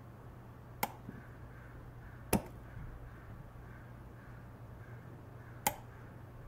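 Three sharp metallic clicks, about a second, two and a half and five and a half seconds in, the middle one loudest, from the Elftmann trigger and ambidextrous speed safety in an AR-15 lower receiver being worked by hand.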